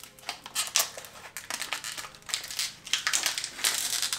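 Crinkling and crackling of a vacuum-sealed foil pouch being gripped and pulled at its top seam to open it. The crackles come in an irregular run that grows busier in the second half.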